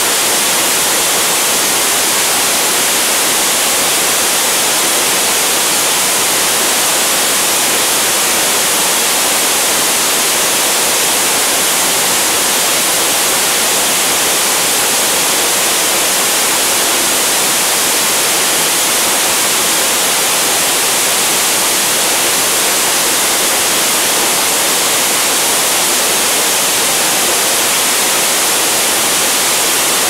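Tall, narrow waterfall pouring down a rock face: a steady, unchanging rush of falling water, heavy in high hiss.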